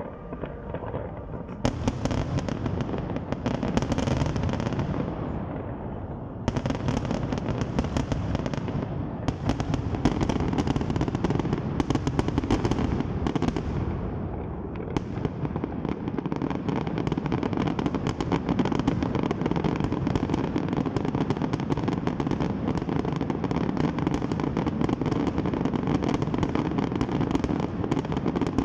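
Large fireworks display going off: a dense, unbroken barrage of bangs and crackling that starts about two seconds in and grows heavier a few seconds later.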